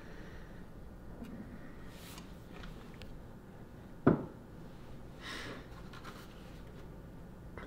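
Faint rubbing and scraping as a wooden picture frame and other things on a shelf are handled, with one sharp knock about four seconds in.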